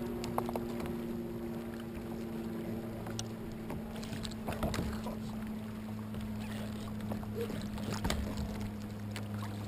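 Water splashing at the side of a kayak and scattered knocks of tackle and hull being handled as a fish is pulled alongside, over a steady low hum.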